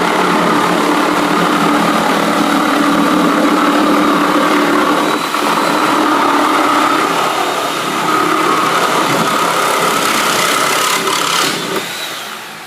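A motor or engine running steadily, then winding down near the end.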